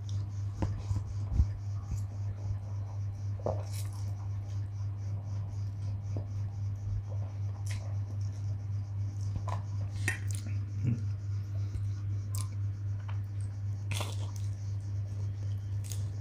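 Eating sounds: instant fried noodles being slurped and chewed, with a metal fork scraping and clicking against a stainless steel bowl. These come as scattered short sounds over a steady low hum, with a sharper knock about a second in.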